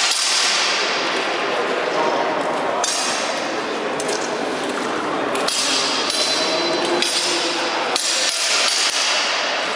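Steel longswords clashing in a free fencing bout: several sharp blade-on-blade strikes with ringing metal, echoing in a large hall.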